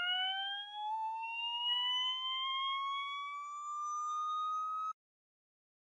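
Drag-racing car's engine pulling hard in its last gear, its pitch climbing steadily and levelling off as the driveshaft speed rises. The sound cuts off abruptly near the end.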